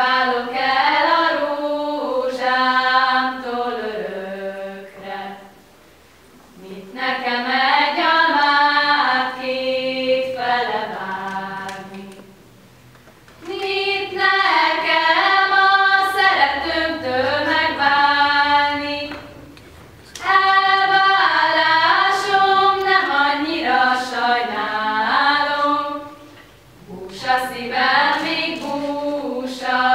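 Four young women singing a Hungarian folk song from Bihar together, unaccompanied, in phrases of about six seconds with a short breath pause between each.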